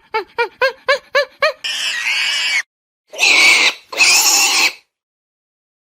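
An animal calling: a quick run of short, high, arching squeaks, then three longer, harsh squeals, after which it falls silent.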